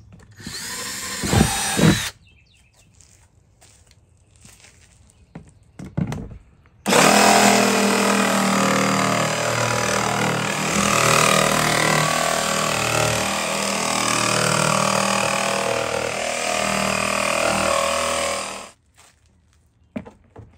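Cordless drill boring into a hard plastic storage tote. There is a short run with a rising whine about a second in, then a longer continuous run from about seven seconds that stops abruptly shortly before the end.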